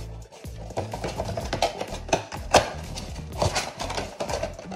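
Background music with a run of light taps, clicks and rustles from trading-card boxes and foil packs being handled on a tabletop.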